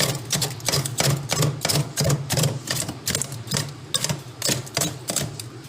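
Rapid, irregular sharp knocks, several a second, as a tool chips at the thick ice buildup in a fridge's freezer compartment, over a steady low hum.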